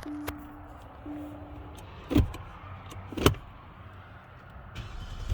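Two short steady beeps from the Hyundai Genesis G80's dashboard chime, then two sharp knocks about a second apart. Right at the end the car's engine catches and starts after repeated no-starts.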